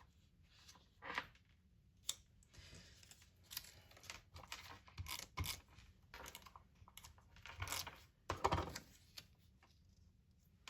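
Paper pieces being handled and stuck down with tape: scattered soft rustles and small clicks, the loudest about eight and a half seconds in.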